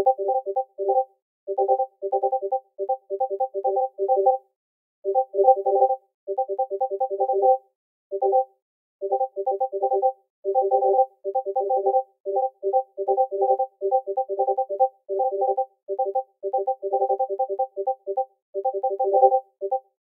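Discord message notification ping repeated rapidly, several short pitched blips a second, often overlapping, with short pauses about four and eight seconds in.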